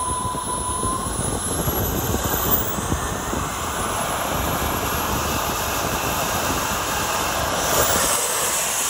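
1/7-scale Blackburn Buccaneer model jet's engines running on the runway: a steady jet rush with a thin high-pitched whine that slides upward over the first few seconds. The high-pitched part gets louder near the end.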